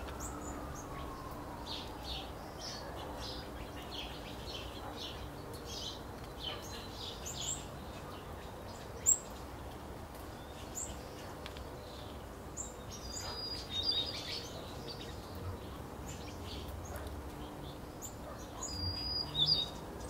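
Small finches at a seed feeder chirping and twittering: a scatter of short, high chirps throughout, with one sharp, loud chirp about nine seconds in and busier bursts of calls near the middle and near the end.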